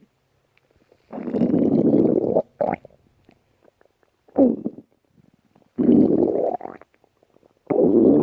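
Stomach growling in a run of separate growls, each half a second to a second and a half long with a short one in between, parted by brief silences; the middle growl falls in pitch.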